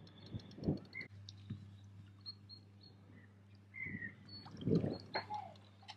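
Faint lakeside ambience: a hooked carp splashes softly at the surface twice, about a second in and again near five seconds, as it is played towards the landing net. A few short bird chirps sound in between.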